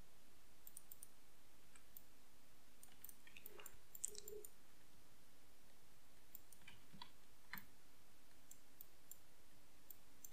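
Faint, sparse clicks of a computer mouse and keyboard, a few louder ones among them, over a faint steady low hum.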